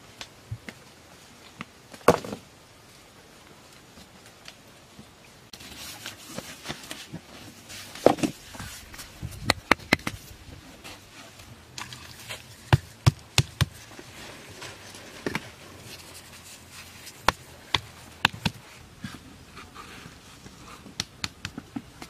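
Rough stones being set down and pressed into wet mud: irregular sharp clacks and knocks of rock on rock, a dozen or so scattered through, some in quick runs of two or three.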